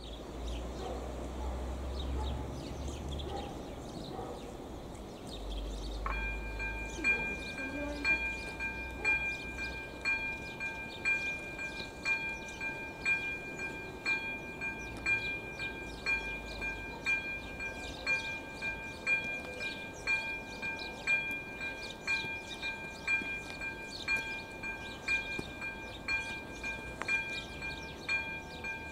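AŽD ZV02 electronic level-crossing bell starts ringing about six seconds in, a bright ding struck roughly once a second. It is the crossing's warning switching on for an approaching train.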